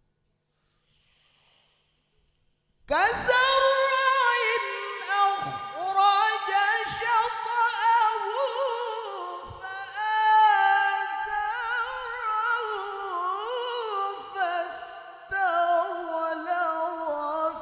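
Near silence for about three seconds, then a male Quran reciter's high voice starts at once and carries a long, ornamented melodic line in mujawwad recitation style, the pitch bending and trilling up and down.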